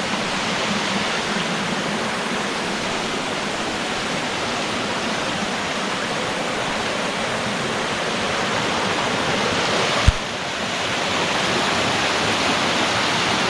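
Waterfall on a creek, water rushing in a steady roar of noise; a single sharp click about ten seconds in.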